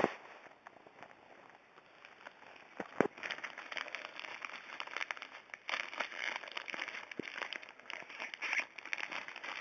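Mail package being torn open by hand: irregular crinkling and tearing of the packaging, with a sharp click about three seconds in.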